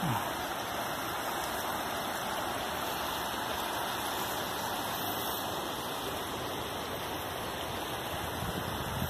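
Small river rushing over a low weir in its stone-walled channel: a steady, even rush of water.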